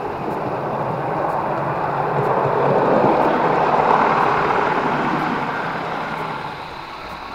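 Model train running along the track: the motor whirs and the wheels roll on the rails, swelling as it passes right by and then fading away.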